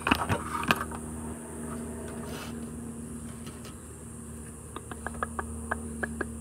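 Small sharp clicks and taps of plastic wiring connectors being handled and pushed together, a few near the start and a run of them in the last second and a half. A steady hum runs underneath.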